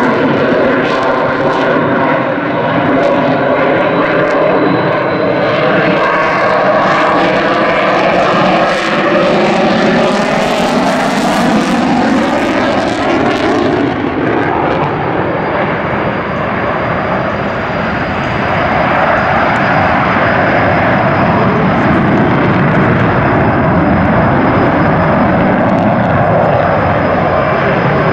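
F-22 Raptor's twin Pratt & Whitney F119 afterburning turbofans, a loud continuous jet roar as the fighter manoeuvres with afterburners lit. Over the first half the roar's tones slide in pitch as the jet passes, then it settles into a steady roar.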